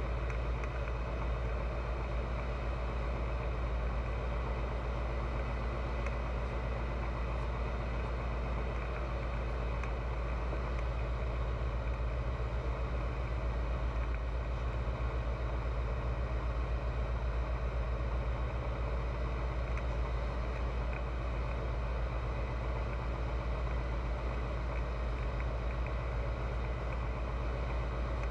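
Pipistrel Virus light aircraft's Rotax 912 four-cylinder engine and propeller running steadily at constant power in flight: an even, low drone that does not change.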